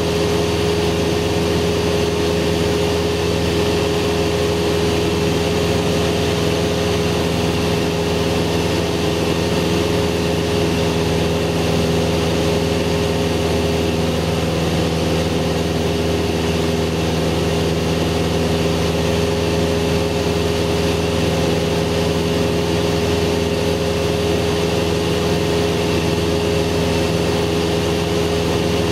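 Cessna 172's piston engine and propeller running at a steady power setting in flight, heard inside the cabin as a constant drone with a steady hum over a rushing noise.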